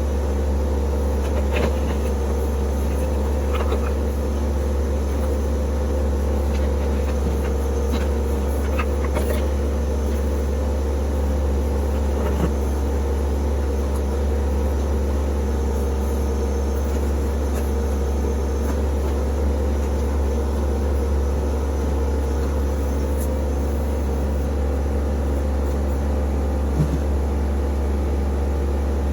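Compact tractor's diesel engine running at a steady speed, with a few faint light clicks over it.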